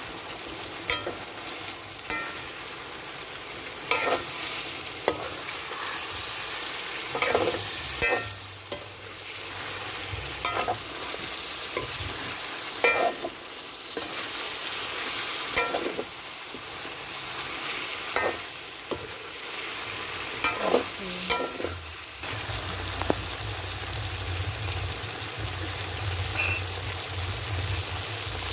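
Chicken and vegetables sizzling in a pan while being stir-fried, with a steady hiss and frequent scrapes and clicks of the utensil against the pan. A low hum comes in about two thirds of the way through.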